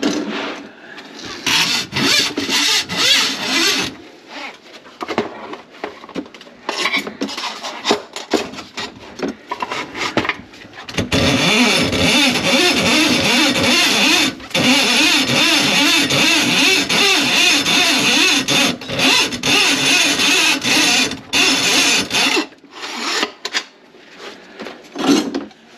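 Electric drain-cleaning machine running to clear a grease-clogged kitchen sink drain line. It starts and stops in short runs, then runs steadily for about eleven seconds with one brief stop, then again in short runs near the end.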